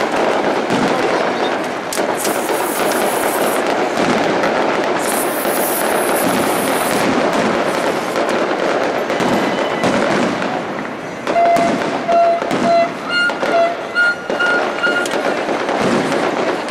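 Fireworks display: dense, continuous crackling and popping of aerial shells, with two longer hissing crackle bursts early on. About two-thirds of the way in, several short pitched toots join the bangs.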